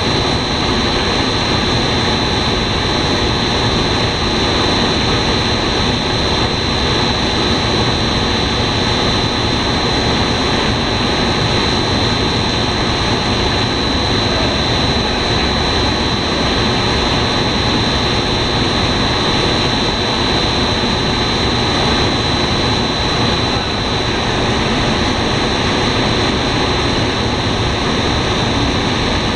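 Twin-screw snack extruder line running: a steady, loud machine drone with a constant high-pitched whine on top.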